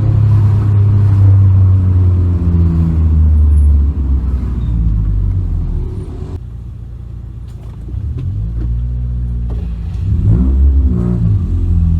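Honda Civic 1.8 four-cylinder engine and aftermarket exhaust, heard from inside the cabin while driving. It pulls steadily under throttle, eases off about four seconds in and runs quieter for a few seconds, then builds again with its pitch rising and falling near the end.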